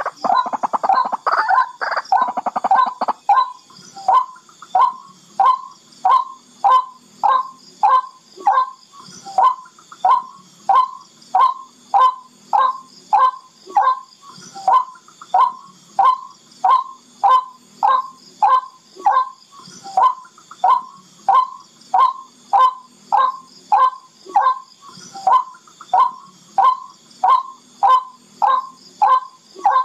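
Barred rail (tikling) calling: a burst of harsh chattering in the first few seconds, then a long run of sharp single notes repeated about one and a half times a second.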